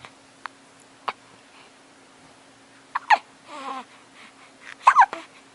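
A baby hiccupping: short, sharp catches of breath, faint at first, then loud ones about three and five seconds in. A brief little voiced sound from the baby follows the first loud hiccup.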